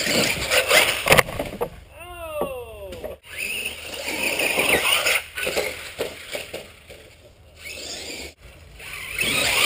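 Radio-controlled car driving and skidding over grass and dirt, its tyres scrubbing over the ground. About two seconds in, its electric motor's whine falls in pitch twice as it slows.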